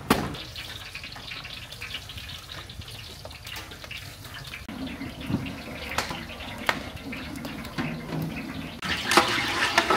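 A sharp knock of split firewood landing, then the steady crackle and hiss of wood fires burning under large cooking cauldrons, with a few more knocks along the way.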